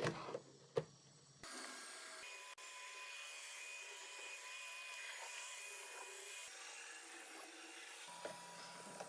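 Robot vacuum cleaner running: a steady hiss with a faint high whine. It sets in about a second and a half in, after a couple of sharp knocks.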